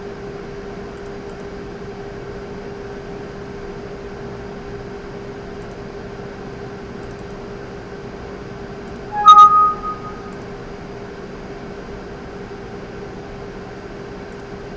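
Steady electrical hum and hiss. About nine seconds in, a short, loud two-tone electronic chime sounds once and dies away within about a second.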